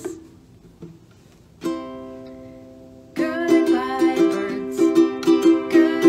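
Ukulele: one chord strummed and left to ring out about one and a half seconds in, then steady rhythmic strumming from about three seconds in.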